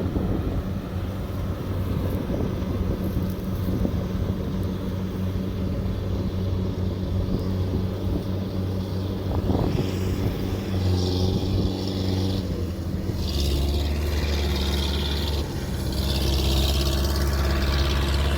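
Kubota DC70 combine harvester's diesel engine running steadily. About two-thirds of the way through, a deeper drone sets in and hiss rises over it.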